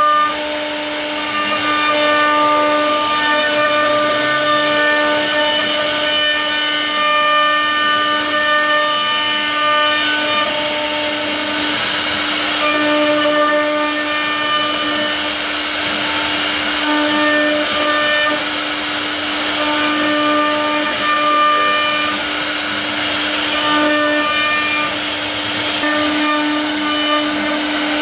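CNC router spindle whining at a steady pitch while its carving bit cuts a relief pattern into a wooden panel, with a hiss of wood being milled. The upper tones of the whine shift now and then as the cut changes.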